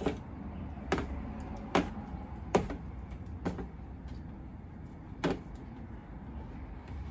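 Metal kitchen tongs clicking and tapping against a bowl while picking up batter-coated okra: six sharp clicks, spaced irregularly about a second apart, over a steady low hum.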